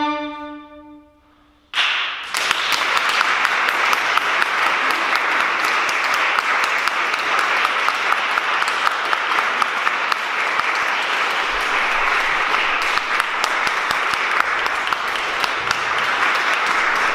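Two violins' last held note fading away, then audience applause that starts sharply about two seconds in and keeps on steadily.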